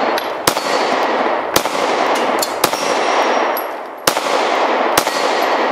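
Five shots from a SCCY CPX-2 9mm double-action-only pistol, spaced roughly a second apart, each echoing through the woods, with steel plate targets ringing when hit.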